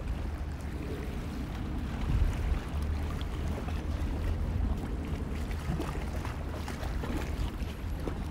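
Wind buffeting the microphone as a steady low rumble, with a few faint clicks over it.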